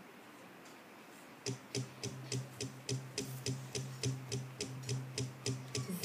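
The instrumental intro to the song starts about a second and a half in: a guitar strummed in even, short, muted strokes about three and a half a second, over a steady low note. It is faint.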